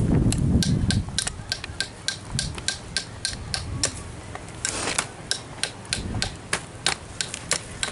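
Ka-Bar BK3 TAC tool striking over and over: quick, sharp knocks, about three or four a second in an uneven rhythm, with a low rumble near the start.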